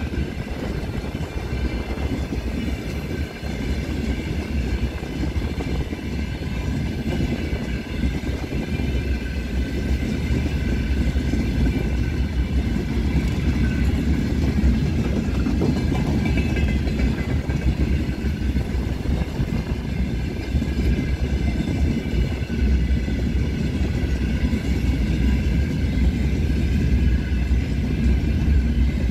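Heavy iron ore pellet freight train rolling past: a steady low rumble of wagon wheels on the rails, with several steady high tones over it, growing slightly louder.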